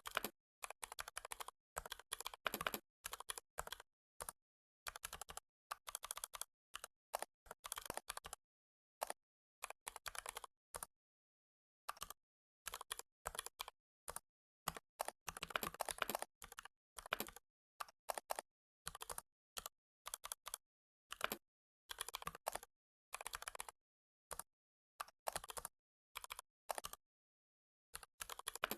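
Computer keyboard typing in quick runs of keystrokes, broken by short pauses.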